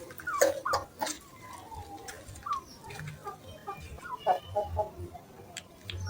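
Chickens clucking, with many short, scattered calls. A few sharp clicks or knocks sound in the first second.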